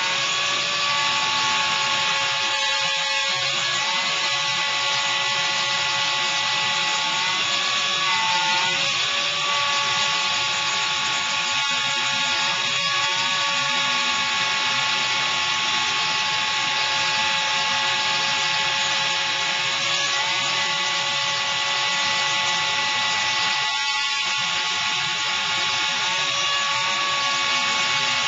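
CNC router spindle milling 19 mm MDF, a steady high whine over the hiss of the bit cutting, with a few brief dips in pitch.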